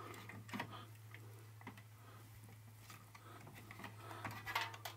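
Faint scattered clicks and taps as a wired smart meter is handled and set into place in a fuse box, a few more near the end, over a steady low hum.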